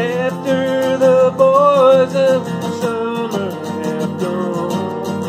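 A man singing a held, wavering line over his own strummed acoustic guitar; the voice eases off about halfway through while the strumming carries on.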